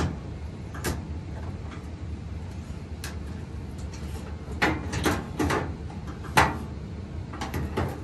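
Front panel of a Miele T9820 dryer knocking and scraping against the cabinet as it is worked into place by hand: a handful of short knocks, clustered in the second half, the loudest about six and a half seconds in, over a steady low hum.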